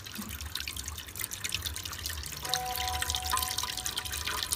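Mango juice dripping and trickling through a mesh strainer into juice in a pot as a hand squeezes the pulp, with many small quick drips and splashes. A faint steady tone comes in about halfway through.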